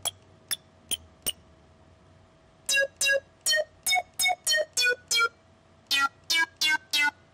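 A sampled 'acid' sound played by the EXS24 software sampler as short notes at different pitches, each note sounding as it is entered in the piano roll. Four quick clicks come first, then a run of eight short notes whose pitch changes from note to note, then four more.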